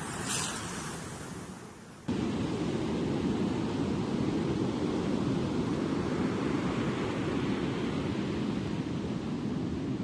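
Storm surf. First a wave crashes against a rock seawall and its spray hiss fades over about two seconds, then an abrupt cut at about two seconds brings the steady, deep noise of heavy surf breaking on a beach.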